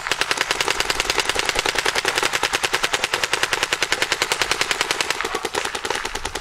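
Paintball marker firing in a rapid, unbroken stream, more than ten shots a second.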